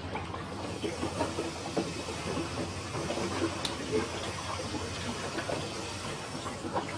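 Electrolux 15 kg top-load washing machine's basket and drive rotating during an actuator test, a steady mechanical rattle with irregular small clicks. The clutch is being checked for locking the basket to spin and releasing it to agitate.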